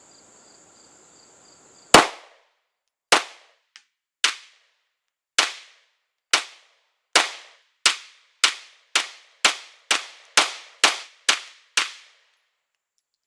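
CZ P10 C 9mm pistol fired in a rapid-fire string of about fifteen shots. The shots come about one a second at first and speed up to about two a second, each a sharp crack with a brief trailing ring.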